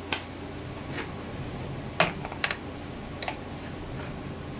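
Handling noise on a workbench: about five sharp clicks and knocks, the loudest about two seconds in, as a multimeter and its leads are picked up and moved. A steady low hum runs underneath.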